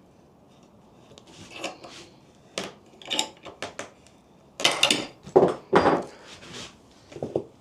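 Metal clinks and knocks of a clamp being cranked against the jaw of a Stanley 702 corner vise to force the bent jaw back into square. A cluster of louder knocks comes between about four and a half and six seconds in, as the clamp gives way and breaks.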